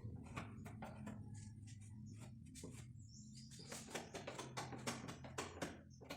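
Putty knife spreading catalysed body filler over a wooden speaker box: a quick, irregular run of short scraping strokes, with faint music underneath.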